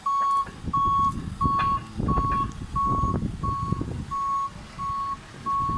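Manitou telehandler's reversing alarm beeping steadily, about one and a half beeps a second, over engine rumble and a few knocks.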